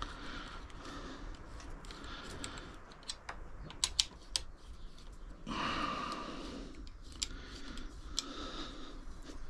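Scattered light metallic clicks of a small wrench and bolts being worked while the mounting bolts of a Tongsheng TSDZ2B mid-drive motor are tightened, with a short rustling noise a little past halfway.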